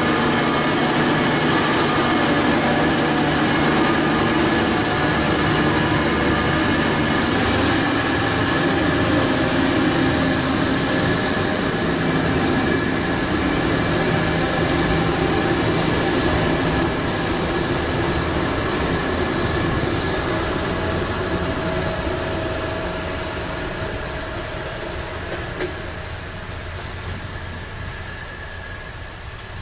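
SKPL class SN84 (ex-DB class 614) diesel multiple unit pulling away from the platform, its diesel engines running under load with a steady drone. The sound fades gradually over the last ten seconds or so as the train draws away.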